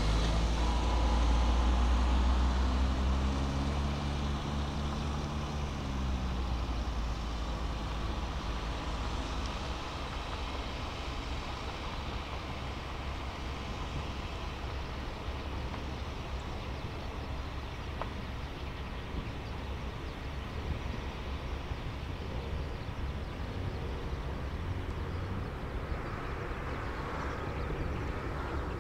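Airbus A330 twin-jet climbing out in a banking turn, its Rolls-Royce Trent 700 engines giving a steady broad roar. The roar is loudest in the first few seconds, with a deep rumble and a few falling tones, then settles to an even level.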